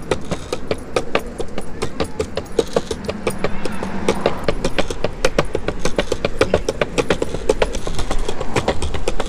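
Rapid, irregular clicking and rattling over a low rumble while being towed along a concrete sidewalk by a husky: rolling over the pavement, the dog's harness and a plastic kiddie pool held against the body all jostling.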